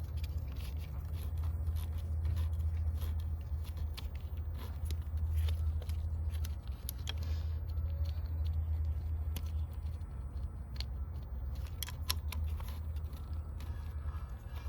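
Hand ratchet clicking in short irregular runs, with metal tool handling, as ignition coil bolts are tightened back down, over a steady low hum.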